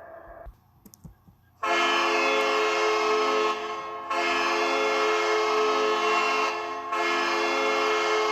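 Ice hockey arena goal horn, a deep air horn sounding a chord of several tones. It starts about a second and a half in after a brief near-silent gap, and it sounds in three long blasts with short dips between them.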